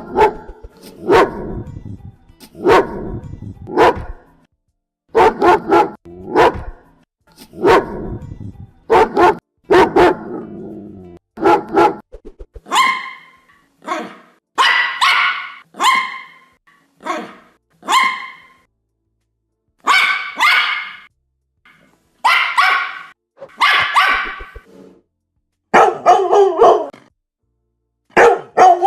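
Dogs barking in groups of a few barks at a time, with silent gaps between the groups. The barks are deep for the first dozen seconds, then turn higher-pitched and sharper.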